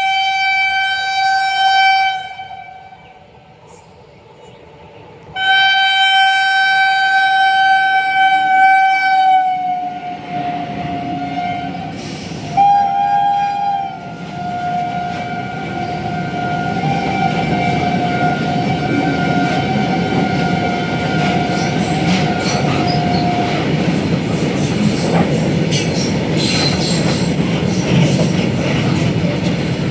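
Locomotive horn of a high-speed through train blowing two long blasts, the second dipping slightly in pitch as the train draws level. The horn goes on more faintly over the loud rush and rumble of the train passing at full speed, with wheels clattering over the rail joints, and stops about three quarters of the way through while the carriages keep rushing past.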